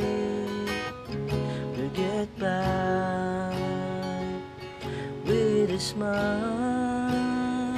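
Acoustic guitar strummed in slow chords while a man sings along in long, held notes.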